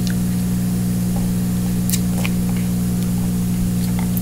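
Steady low electrical hum, with a few faint clicks and rustles from a foil drink pouch being handled and sipped through a straw.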